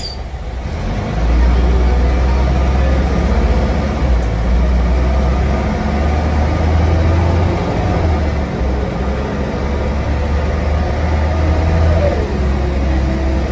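Diesel engine of a 1994–95 preserved bus heard from inside the passenger saloon, pulling away and running under load. The engine grows louder about a second in and eases off briefly twice, around the middle and near the end.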